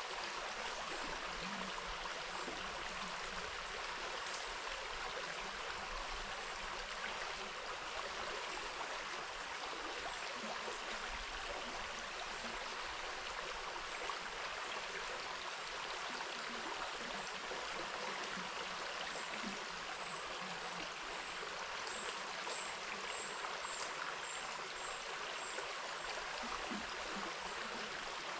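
Steady rushing of a flowing river, with a few faint high peeps near the end.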